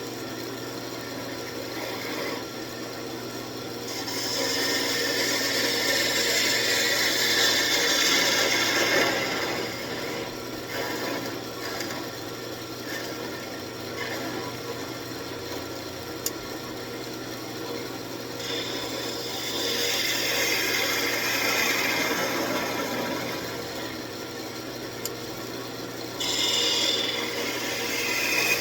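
Wood lathe running with a steady motor hum while a gouge cuts into a spinning walnut blank. The cutting noise swells and fades in long passes, loudest about four to nine seconds in and again near the end.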